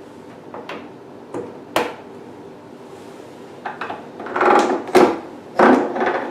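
A plastic handle and its connector knocking and clicking as it is handled and plugged into the socket of a beauty machine. A few sharp clicks come first, then a cluster of louder clattering knocks in the second half, over a faint steady hum.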